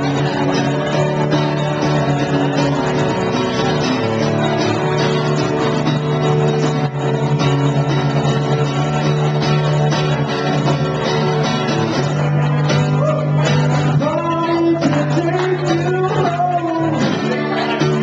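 Steel-string acoustic guitar strummed steadily with a man singing along, the voice coming through most clearly in the second half.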